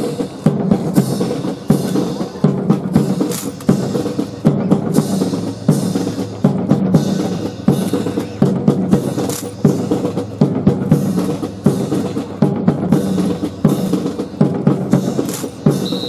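Japan Air Self-Defense Force marching band playing a march on the move, with a steady beat of snare and bass drums under sustained brass.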